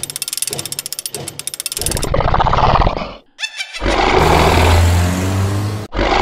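Dubbed sound effects: a fast clicking rattle for about two seconds, then a dinosaur roar that settles into a long, deep growl.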